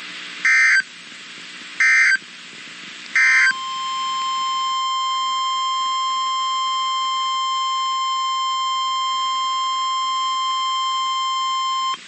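NOAA Weather Radio alert signal: three short bursts of SAME digital header data about 1.3 seconds apart, then, from about three and a half seconds in, the steady 1050 Hz warning alarm tone. The tone marks a warning-level alert, here a severe thunderstorm warning.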